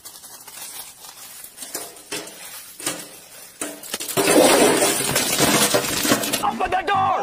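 A man chewing a mouthful crammed with dry biscuits, with faint crunching, then about four seconds in a loud sputtering cough as he chokes and sprays the biscuits out of his mouth.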